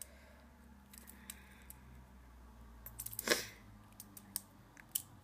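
A coin scraping and clicking against a plastic fidget spinner's finger pad as it is pried at: scattered small clicks, with a louder scrape about three seconds in. The pad is on tight and does not come off.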